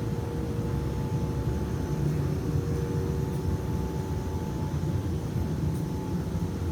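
A machine running steadily: a continuous low rumble with a faint steady hum above it.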